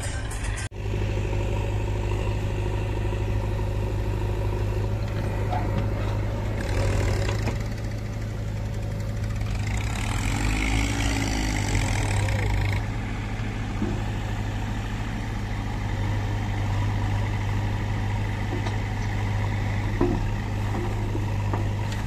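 Farm tractor's diesel engine running steadily with a low, even drone while it hauls a loaded sand trolley. The sound breaks off briefly just under a second in.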